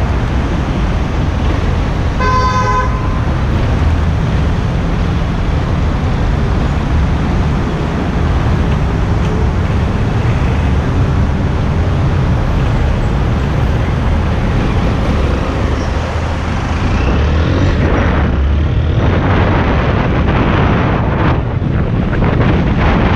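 Honda XRE 190 motorcycle's single-cylinder engine idling amid street traffic, with a vehicle horn honking once, briefly, about two seconds in. Near the end the bike pulls away, the engine rising in pitch as it accelerates, with wind rush on the microphone.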